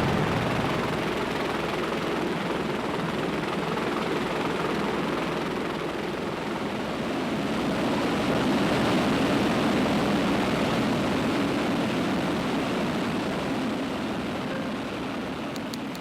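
Steady noise of aircraft in flight during low-altitude aerial refuelling of CH-53E helicopters from a KC-130J tanker. It swells a little about halfway through and fades near the end.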